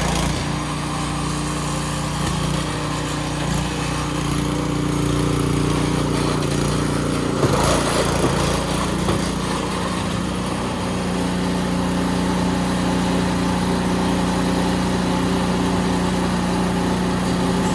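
Small petrol engine of a snowblower running steadily while snow is cleared, with a louder stretch of rushing noise about seven to nine seconds in.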